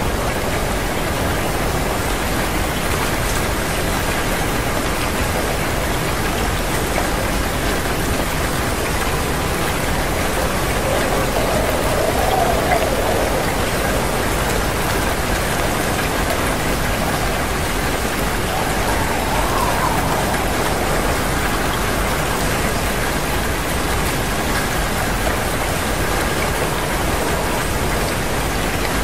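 Steady, even hiss like falling rain.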